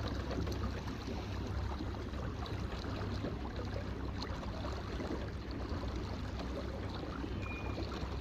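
Water lapping and splashing against a small fishing boat's hull on choppy water, with a steady low rumble of wind on the microphone.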